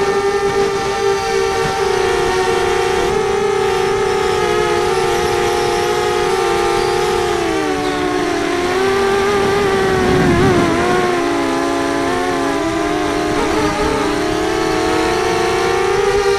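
FPV racing quadcopter's electric motors and propellers whining, several close pitches together, the pitch sagging about halfway through as the throttle eases and climbing back near the end.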